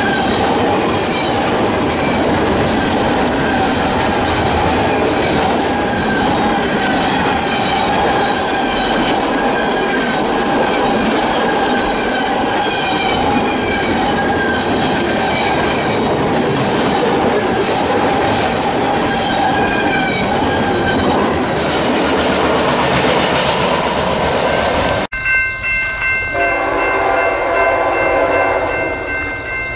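Freight cars rolling past close by: steady wheel-on-rail noise with a wavering squeal from the wheels. About 25 seconds in, a hard cut brings an approaching freight locomotive sounding its air horn in a steady chord.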